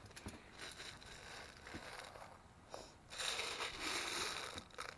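A hand scooping through a plastic jar of water-soaked gel balls to reload, the beads giving a wet rustling for about a second and a half from roughly three seconds in, with faint handling clicks before it.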